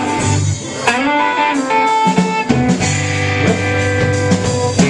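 Live band playing, led by electric guitars with a bass line underneath, coming in about a second in.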